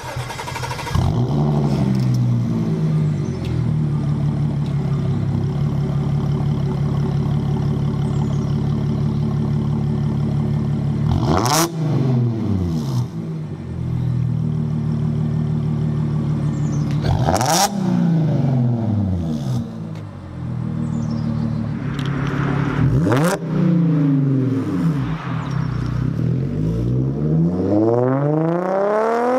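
Audi B8.5 S5's supercharged 3.0 V6 through an AWE Track Edition exhaust with non-resonated downpipes, starting semi-cold about a second in and settling into a steady idle. Sharp throttle blips come about a third and about halfway through, then several more revs, and the pitch rises near the end as the car accelerates away.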